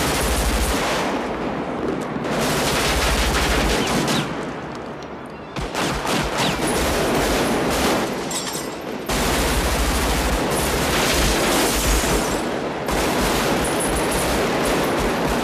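Automatic rifle fire in a street gunfight: rapid, nearly continuous shots and bursts, easing briefly about four seconds in and again around eight seconds.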